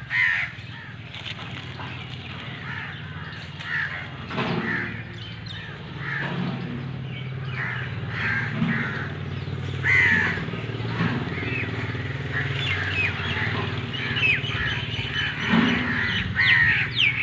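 Crows cawing repeatedly in short harsh calls, several close together near the end, over a steady low hum.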